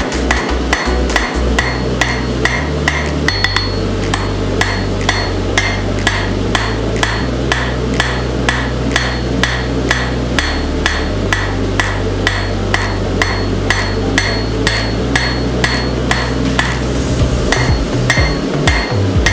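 Hand hammer striking a red-hot railroad spike on an anvil, drawing out a blade in a steady rhythm of about two to three blows a second, each blow ringing briefly.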